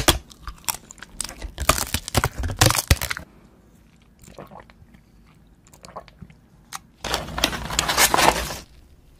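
Close-miked crisp bites and crunching of edible paper money bills for about three seconds. Then come quieter wet mouth sounds as red liquid is sucked from a syringe, and about seven seconds in a dense stretch of paper crinkling and rustling lasting over a second as red paper envelopes are handled.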